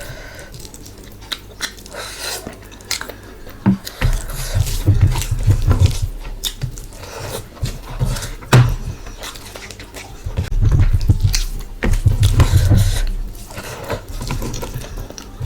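Close-miked eating: a person chewing and biting mouthfuls of curry and rice, with wet mouth clicks and smacks, the chewing heavier in two stretches.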